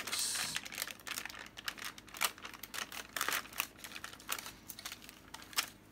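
Greaseproof paper being slowly peeled back off freshly melted wax on small paper pieces, crinkling and crackling in irregular small clicks that thin out towards the end.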